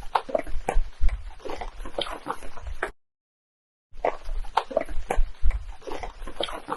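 Field recording of strange vocalizations from recorders left in the woods, which the recordist attributes to Sasquatch. It plays as two stretches of about three seconds each: irregular short calls and crackles over a low rumble, with a gap of silence about three seconds in.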